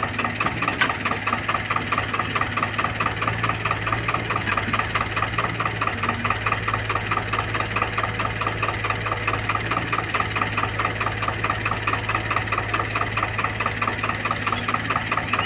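Farm tractor's diesel engine idling steadily close by, with a fast, even clatter of about five beats a second.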